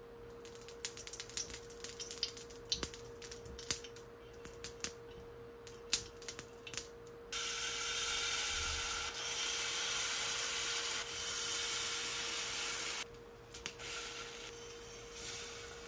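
Light clicks and taps of a basting brush and utensils against a small nonstick egg pan. About seven seconds in, a steady loud sizzle starts as thin flour batter is poured into the hot oiled hollows, and it cuts off about six seconds later. Softer spoon taps follow as the batter is spread.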